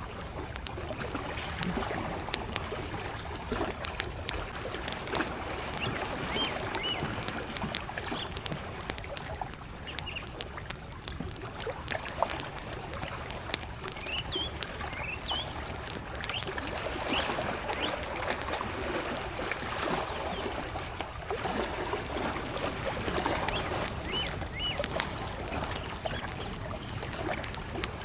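Campfire crackling with sharp pops, over gentle lake waves lapping in slow swells. Short high bird chirps come now and then.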